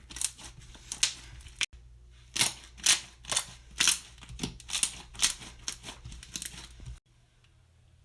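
Stretchy slime being squeezed and poked, giving repeated sticky pops and clicks about twice a second. The sounds cut off suddenly near the end.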